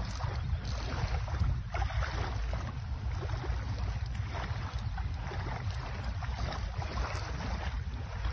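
Wind buffeting the phone's microphone: a steady low rumble with a fainter hiss over it.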